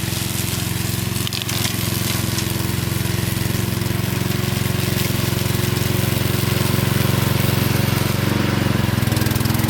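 Engine of a remote-control tracked lawn mower running steadily, with an even, rapid pulsing hum.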